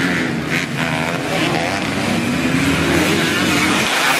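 Kawasaki Ninja-engined trail motorcycle running under way, its engine note rising and falling with the throttle.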